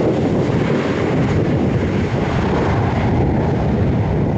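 Jet airliner engine noise, a steady low rumble, mixed with wind buffeting the microphone.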